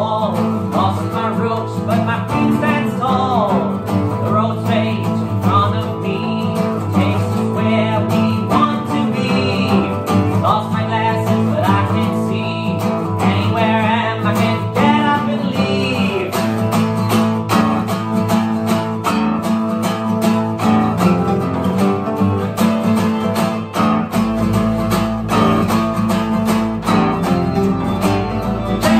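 Two acoustic guitars playing a slow song together, with a man singing over them through roughly the first half.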